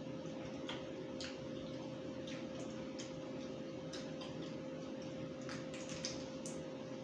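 Close-up eating sounds: wet chewing and lip-smacking on roast chicken, with scattered soft clicks a few times a second, over a steady background hum.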